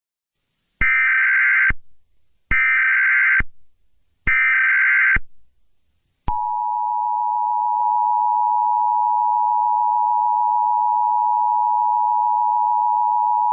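Emergency Alert System header: three harsh bursts of digital data tones, each about a second long with a second's gap between them. About six seconds in, the steady two-tone EAS attention signal begins; it introduces a new alert.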